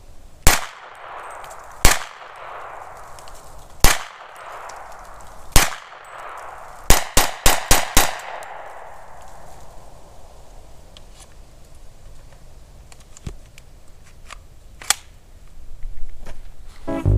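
Kel-Tec Sub-2000 carbine in .40 S&W firing semi-automatically: four single shots spaced a second and a half to two seconds apart, then five rapid shots about a quarter second apart. Each shot is followed by a fading echo off the surrounding woods.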